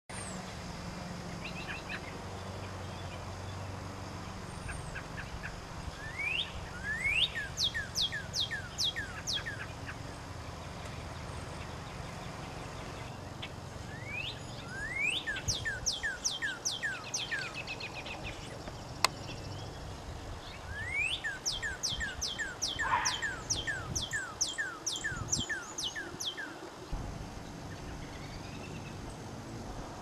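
Northern cardinal singing: three phrases of rapidly repeated slurred whistles, each opening with a rising note followed by a run of falling notes. A single sharp click comes about two-thirds of the way through.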